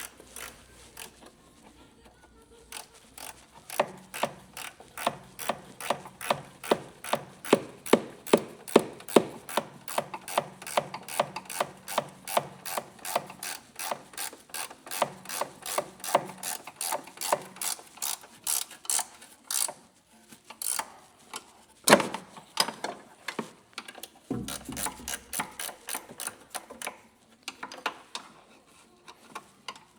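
Ratchet wrench clicking in a steady rhythm of about three clicks a second, with a short pause and one louder knock late on.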